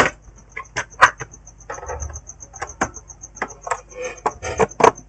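Irregular sharp clicks and light taps of hands handling a plastic laptop case, over a faint, high, fast, even ticking.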